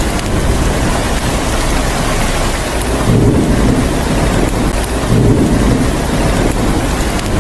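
Steady rain with low rumbling thunder swelling twice, about three and five seconds in.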